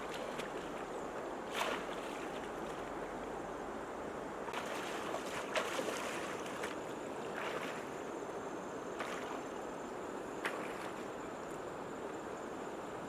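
Shallow river water splashing and sloshing as people wade through it and push a woven bamboo fish trap down into it, with several sharp splashes over a steady rush of water.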